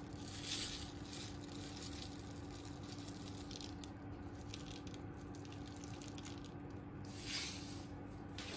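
Sesame seeds sprinkled by hand onto raw salmon fillets on a parchment-lined baking tray: soft rustles and light pattering, a little louder about half a second in and again near seven seconds, over a steady low hum.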